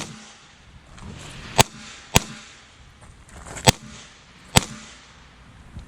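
Revolver shots: five sharp cracks spaced unevenly, from about half a second to a second and a half apart.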